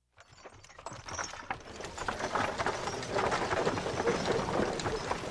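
Horse hooves clip-clopping, fading in over the first two seconds and then going on steadily.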